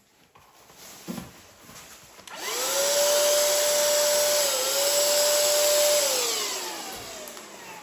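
Cordless DEKO paint sprayer's turbine motor switched on for a test: it spins up quickly to a steady whine with air rushing, dips briefly once, then winds down after about three and a half seconds.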